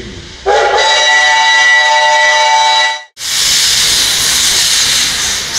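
The steam whistle of a 1951 L-class ('Pobeda') steam locomotive blows one long, steady blast starting about half a second in and ending around three seconds. After a brief break, steam vents with a loud hiss.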